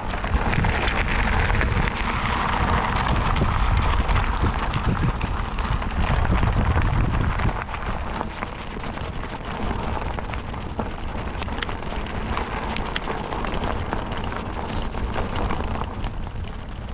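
Riding noise from a fat bike: wind buffeting the microphone over the hum of wide knobby tyres rolling on a trail lightly dusted with snow, with scattered small clicks and crunches. The low rumble eases about seven seconds in.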